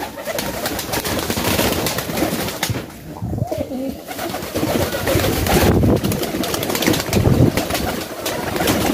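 A flock of domestic pigeons cooing together continuously, with short flutters of wings.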